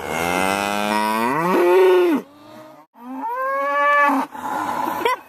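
A cow mooing twice close by: one long moo of about two seconds that rises in pitch toward its end, then after a short break a second, shorter moo.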